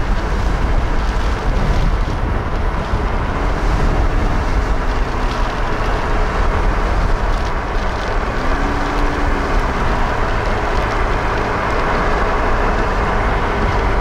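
A steady, loud rush of wind and vehicle noise heard from inside a car. A faint tone rises and falls twice, about three and eight seconds in.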